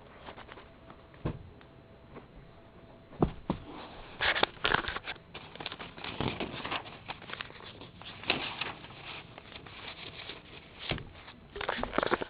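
Irregular knocks, taps and rustling of camera handling noise, with a faint steady tone in the first few seconds.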